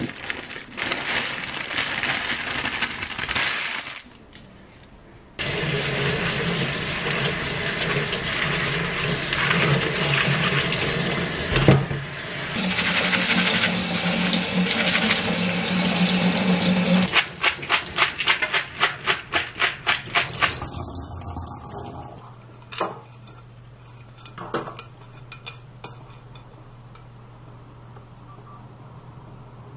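Kitchen tap running onto soybean sprouts in a plastic colander as they are rinsed and picked through by hand. After it, a run of quick, even pulses, about three a second. Then it goes quieter, with a low steady hum and a few light clicks.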